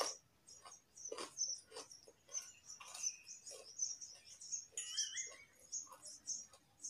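Raw carrot being chewed with the mouth closed: a steady run of crisp, crackly crunches, about two or three a second. A short wavering chirp-like whistle sounds about five seconds in.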